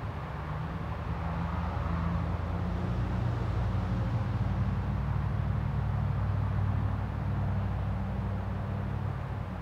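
A steady low mechanical rumble, like a motor or vehicle running, that swells a little through the middle and eases toward the end.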